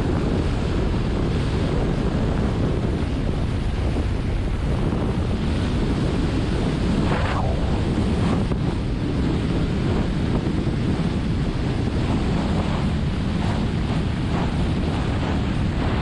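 Steady, loud wind rush buffeting a skier's action-camera microphone during a high-speed downhill run at about 50 mph.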